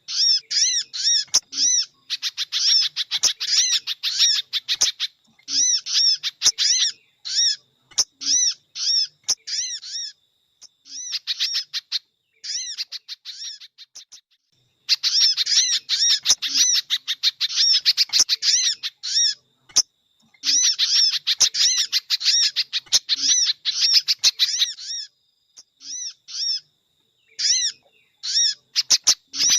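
Bird-lure recording of sogon and pejantung calls: rapid series of short, high chirps in bursts lasting from about a second to several seconds, with brief pauses between them, and an occasional sharp click.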